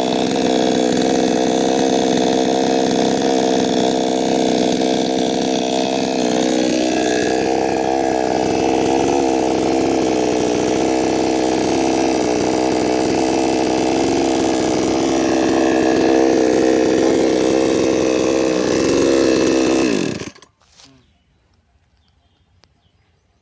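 A 55 cc two-stroke petrol chainsaw engine running steadily, its pitch rising a little about a third of the way in. Near the end the engine cuts out, its pitch falling quickly as it stops.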